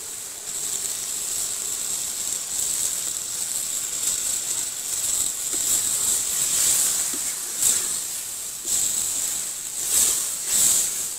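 Bottle gourd and fish curry sizzling in a large metal wok as it is stirred with a wooden spatula, a steady high hiss with a few louder scrapes in the second half.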